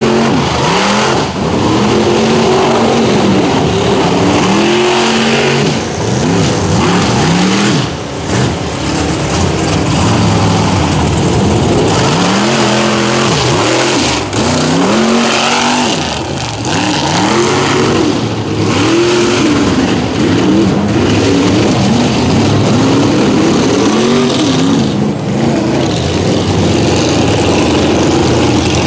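Lifted mud-bog truck's engine revving hard over and over, its pitch sweeping up and dropping back again and again as it is driven through the mud pit.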